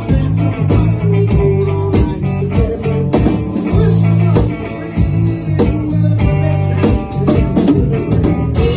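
Live band playing: electric guitar, bass guitar and drum kit, with a steady drum beat.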